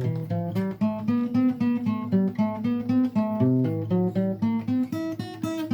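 Acoustic guitar playing on its own, notes picked and strummed in a steady rhythm of several a second.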